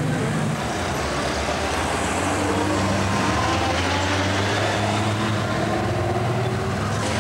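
Honda Gold Wing touring motorcycle engine running steadily, its note rising and falling gently.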